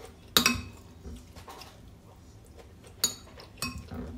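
Metal spoon clinking and scraping against a ceramic plate of rice and fish: one ringing clink about half a second in, a quieter stretch, then three more clinks close together near the end.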